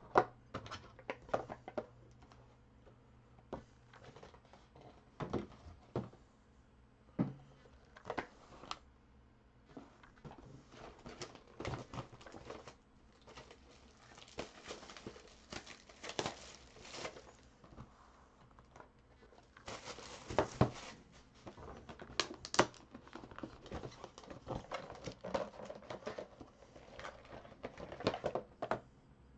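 Cardboard trading-card boxes being handled and pulled from their case: irregular scrapes, knocks and crinkling of cardboard, with a longer rustle about twenty seconds in.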